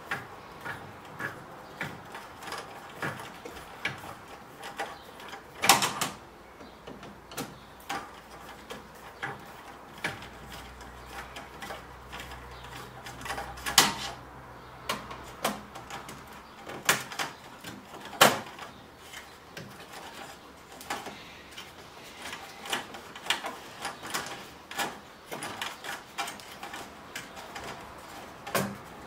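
Small irregular metallic clicks and knocks of a screwdriver turning screws out of a flat-screen TV's sheet-metal chassis, with a few louder knocks.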